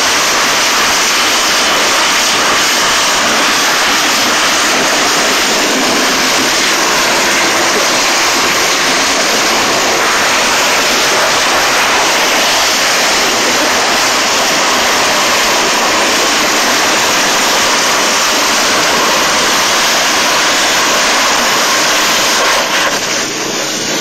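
A steady, loud rushing noise with no breaks: wind and road noise of travel at speed.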